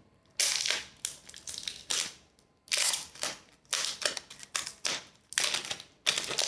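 Repeated short bursts of rustling and scraping from the iPhone 11 box and its packaging being pulled and worked at, a box that is stubborn to open.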